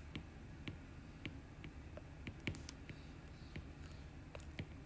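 Faint, irregular clicks of a stylus tapping and writing on a tablet screen, over a low room hiss.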